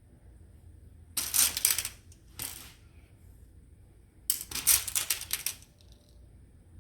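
Small beads clattering and clicking against a bead tray as they are moved or scooped: one short rattle about a second in, a brief one just after, and a longer rattle a little past four seconds.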